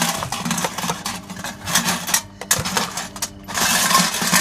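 Steamed food being dumped out of an upturned aluminum can cooker into a foil pan: corn cobs and chicken knocking and sliding against the metal and the foil, in a run of rattling, clattering clicks with a couple of short pauses.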